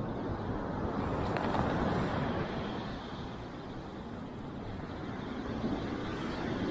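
Steady, low rushing outdoor noise with no distinct events, dipping slightly in the middle.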